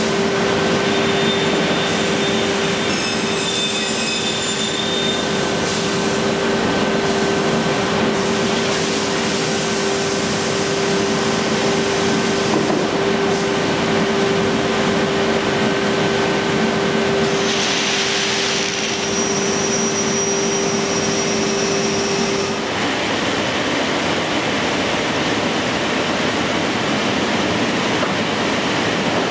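Automatic panel saw running: a steady hum with a high whine. About 17 seconds in the sound changes to a burst of hiss with higher whines, and from about 22 seconds in only a steady rushing hiss is left.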